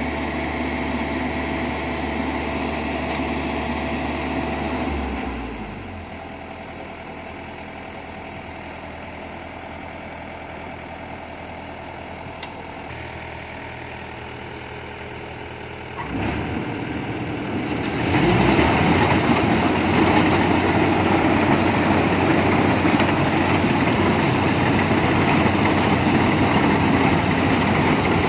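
Yanmar rice combine harvester's diesel engine running steadily, dropping to a quieter, lower note about five seconds in. It picks up again about sixteen seconds in and from about eighteen seconds runs loud and full.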